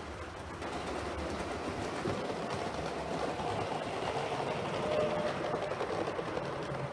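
A 7mm-scale (O gauge) model train, a model Ivatt 2-6-0 locomotive hauling coaches, running along the track: a steady rumble of wheels and motor that grows louder as it passes close by.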